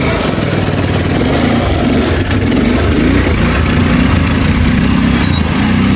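Quad bike engine running loud and steady, its pitch wavering slightly.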